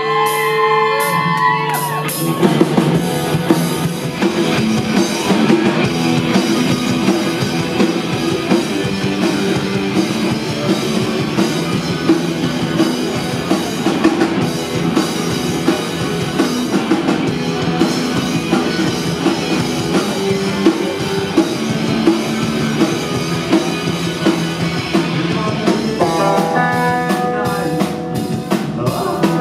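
Rock band playing live: electric guitar, bass guitar and drum kit. The full band crashes in about two seconds in, after an opening shout, and keeps playing with a steady drum beat.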